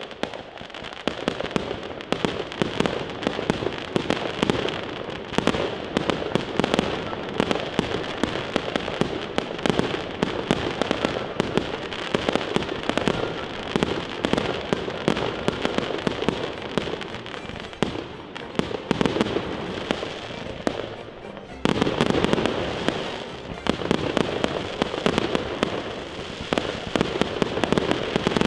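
Firework display: a dense, continuous run of crackles, pops and bangs from aerial shells and crackling stars. It gets suddenly louder about three quarters of the way through.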